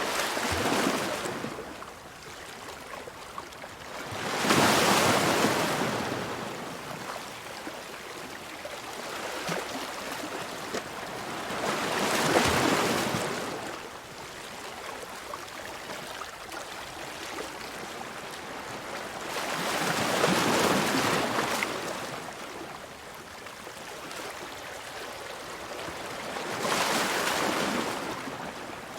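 Ocean waves breaking and washing up, coming in five surges several seconds apart that swell and then fade, with a softer wash between them.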